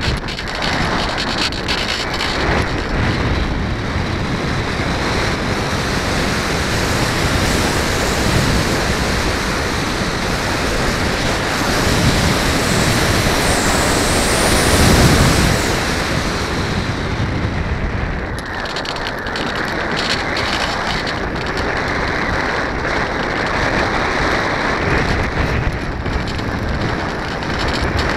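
Airflow rushing over the microphone of a camera mounted on a foam RC plane in flight, a steady noise that grows loudest about halfway through as the plane dives, then eases off.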